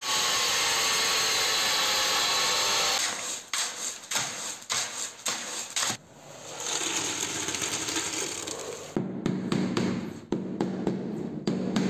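An angle grinder with a diamond blade cutting through a floor tile, a loud steady cut that stops about three seconds in. Then come irregular knocks and scraping, and in the last three seconds a rubber mallet taps a laid floor tile down into its mortar bed, several quick taps over a low hum.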